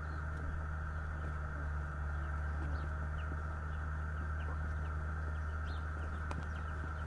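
A steady low hum and hiss, with faint short bird chirps scattered throughout.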